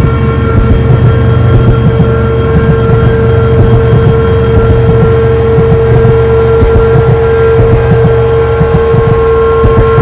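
A loud, steady low drone, a deep rumble with a constant humming tone over it, unchanging throughout.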